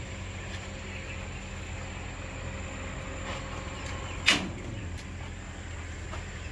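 A single sharp knock about four seconds in, from building work on the chicken coop, over a steady low hum.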